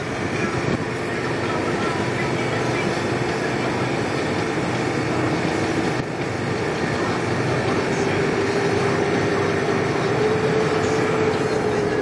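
Steady road and engine noise inside a moving car's cabin, with a low hum that rises slightly in pitch about two-thirds of the way through.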